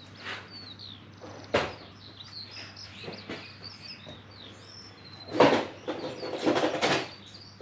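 A 1UZ VVTi drive-by-wire throttle body is handled by hand on the bench while its throttle position sensor is fitted. There is a sharp click about one and a half seconds in, then a cluster of clicks and rattles near the end. Birds chirp faintly throughout.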